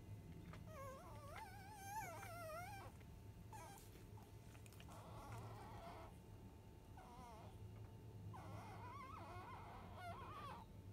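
Five-day-old Labrador retriever puppies whimpering faintly while nursing. A high, wavering whine lasts about two seconds near the start, followed by several shorter whines.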